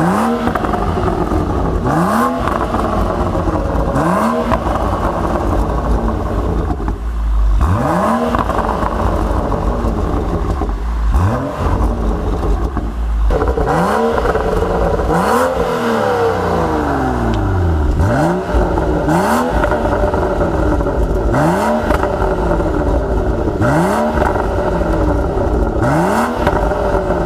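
BMW M235i's turbocharged straight-six, fitted with an M Performance exhaust, revved repeatedly while the car stands still. Quick throttle blips come about every two seconds, each rising and falling back toward idle, with a longer run of revs in the middle and short sharp pops here and there.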